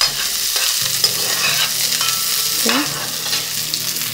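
Sliced onion sizzling as it sautés in hot oil in a metal pot, stirred with a metal spoon that scrapes and ticks against the pot now and then.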